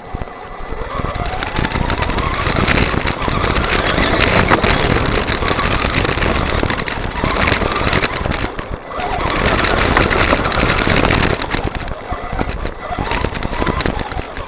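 Traxxas Telluride 4x4 RC truck driving over gravel and grass, heard from its onboard camera: the electric motor's whine rises and falls with the throttle over the steady noise of the tyres on gravel.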